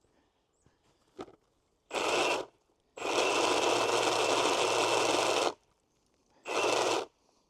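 Milwaukee M18 cordless pole saw running in three bursts, the middle one about two and a half seconds long, with a steady whine, as its chain cuts into a tree limb overhead.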